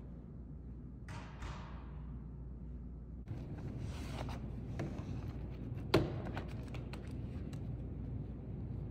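Handling sounds of a laptop and notebook being taken out of a canvas tote bag and laid on a wooden table: rustling and small clicks, with one sharp knock about six seconds in as something is set down. Before that, about a second in, a brief scraping hiss as she settles at the table.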